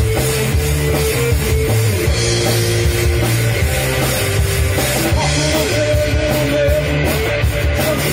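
Rock trio playing live: electric guitar, electric bass and drum kit in an instrumental passage, with the guitar picking up a higher melodic line about five seconds in.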